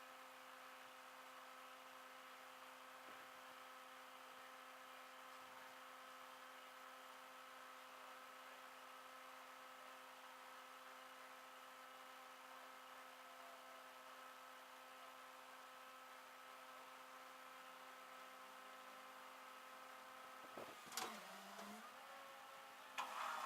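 Near silence with a faint, steady electrical hum made of several held tones. Near the end it is broken by a short clatter with tones falling in pitch, and a louder noise starts just before the end.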